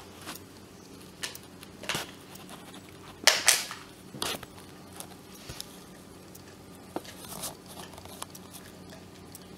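Hard-plastic clicks and scrapes as the grey trim piece is prised off the top of an Orpat HHB-157E hand blender's plastic handle. They come in short scattered bursts, the loudest a little over three seconds in.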